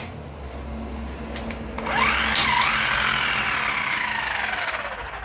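12 V electric impact wrench running on a lug nut. Its motor whine rises about two seconds in, dips briefly, then falls slowly in pitch over about three seconds.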